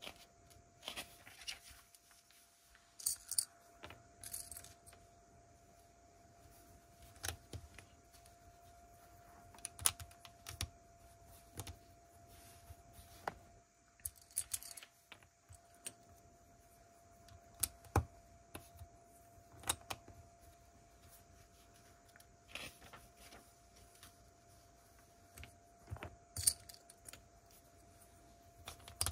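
LEGO plastic pieces being handled and snapped together, making sharp irregular clicks with short bursts of rattling as the pieces are shuffled.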